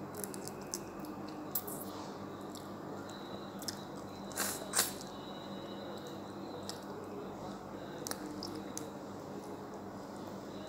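Close eating sounds: chewing and biting on boiled alimasag (blue swimmer crab), with wet squishes and small clicks as the shell and meat are picked apart by hand. A brief cluster of louder clicks comes about four and a half seconds in.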